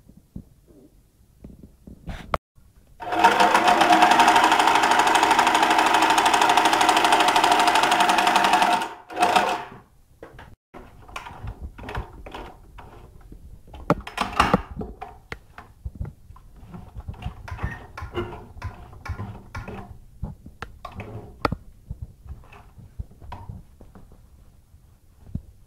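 Janome 618 home sewing machine, fitted with a chain-stitch attachment in its rotary hook, running fast and steady for about six seconds, then stopping abruptly. Scattered light clicks and handling knocks follow.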